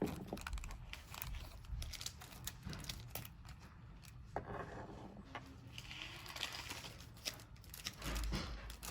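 Small plastic parts packets crinkling with light scattered clicks of small metal lock pieces being handled, as lock wafers are sorted from a rekeying kit.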